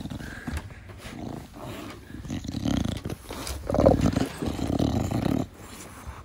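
English bulldog snorting and snuffling as it breathes close to the microphone, a run of rough, grunting breaths that are loudest about four seconds in. This is the noisy breathing typical of a short-nosed (brachycephalic) breed.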